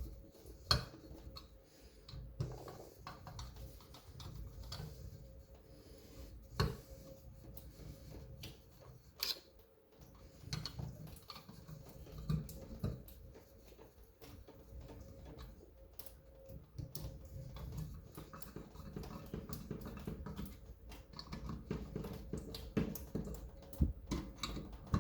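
Scattered small clicks, taps and scraping as parts of a Moen shower valve are handled and fitted back together, with a sharper click every few seconds over low handling noise.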